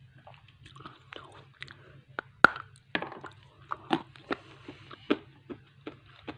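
Chewing and biting of roasted gray edible clay: irregular soft crunches and clicks, the loudest bite about two and a half seconds in. The clay has gone soft from the damp weather, so it gives little real crunch.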